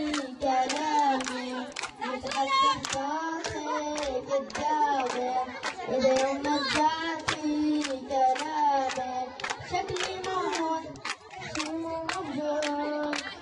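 A boy singing an Arabic song, holding long wavering notes, while the crowd claps along in a steady beat of about two claps a second.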